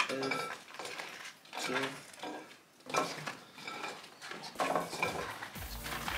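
Light clatter and handling noise of chicken nuggets being taken from cardboard boxes and laid on a plate, in many short separate bits.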